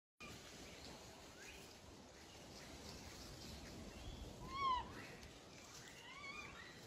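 Japanese macaque giving short arched coo calls: a clear one about halfway through and a fainter one near the end, over a faint background hiss.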